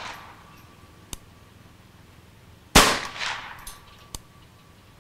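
A single shot from a Ruger Charger semi-automatic .22 LR pistol about three seconds in, a sharp crack that echoes away over about a second. At the start the echo of the previous shot is still fading.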